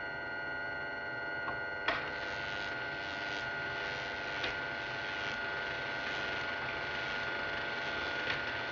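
Electrical laboratory machinery: a steady humming generator with a high whine. About two seconds in a sharp snap sets off a crackling hiss of electric arcing, with scattered sharper cracks, over the continuing hum.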